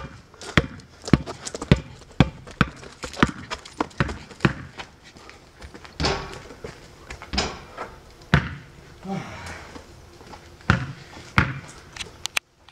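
Basketball being dribbled on a plastic-tile sport court: a run of sharp, irregularly spaced bounces.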